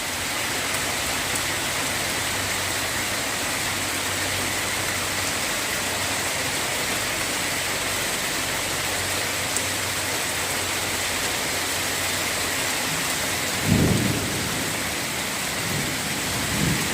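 Heavy rain pouring down steadily, an even hiss with no break. About fourteen seconds in, a brief louder low sound rises over it.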